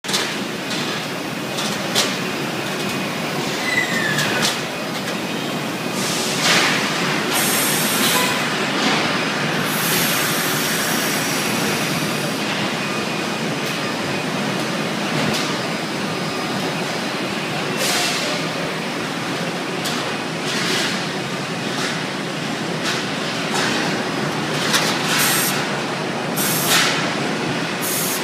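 Steady machinery noise from a car plant's sheet-metal production line, with short hisses and metallic clanks now and then.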